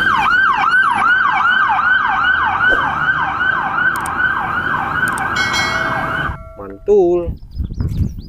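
Police siren sounding in a fast yelp, a rapidly repeating falling sweep about three times a second, that cuts off suddenly about six seconds in.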